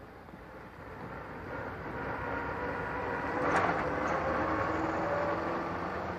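Small vintage car engine (BMW 3/15 Dixi, a four-cylinder of about 750 cc) running as the car drives closer, growing louder over the first couple of seconds and then steady. A brief sharp noise about three and a half seconds in.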